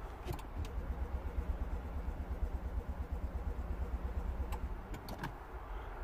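Starter cranking the Smart Fortwo 451's 1.0-litre three-cylinder petrol engine for about five seconds without it firing, stopping near the end, with a few light clicks. A crank-no-start: the engine turns over but won't run, a fault put down to a lack of compression.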